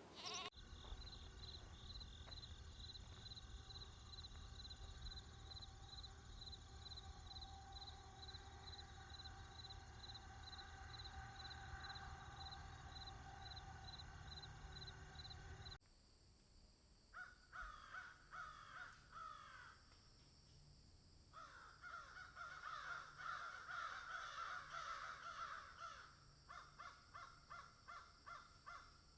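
Quiet sound-effect samples. First comes a steady low hum with a high, regular pulsing chirp about twice a second. About halfway through it cuts abruptly to repeated harsh animal-like calls, which turn into a quick regular pulsing near the end.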